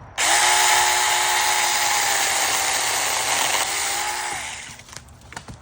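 Small chainsaw starting up suddenly and running at steady speed while cutting through a dead branch, then winding down near the end.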